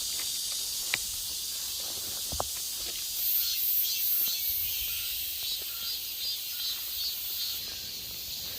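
Insects shrilling steadily in the forest, a high hiss with a pulsing chirp joining about three seconds in. Two light clicks stand out near the start.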